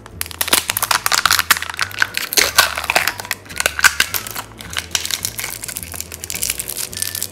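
Thin plastic wrapping crinkling as it is peeled and pulled off a L.O.L. Surprise! Winter Chill toy ball, a dense run of crackles throughout.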